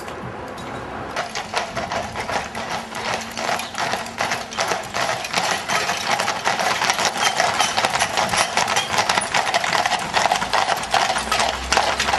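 Hooves of several carriage horses clip-clopping on a tarmac road as they trot past close by. The hoofbeats come thick and fast and grow louder over the first few seconds.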